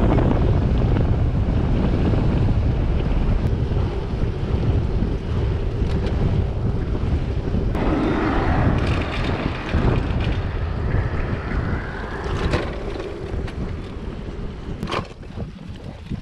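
Wind buffeting the microphone of a camera on a moving road bike, a steady low rumble mixed with tyre noise. Around the middle another vehicle's sound rises and falls. The wind eases toward the end as the bike slows onto a grass track, with a couple of knocks.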